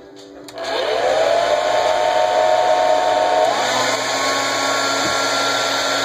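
Hand-held hair dryer switched on with a click about half a second in, its motor whine rising as it spins up and then blowing steadily and loudly. About three and a half seconds in the whine steps up in pitch.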